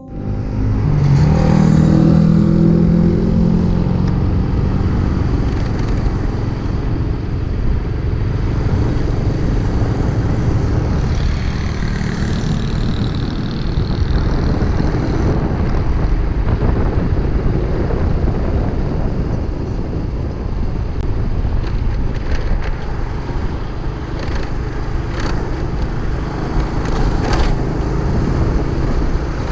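Freshly overhauled motorcycle on the road: the engine climbs in pitch as it accelerates over the first couple of seconds, then runs on in a steady drone mixed with road noise.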